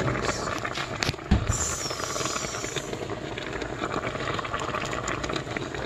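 Steady hiss and crackle of boiling water and steam in a steamer pot cooking asparagus, with a short knock of the pot about a second and a half in.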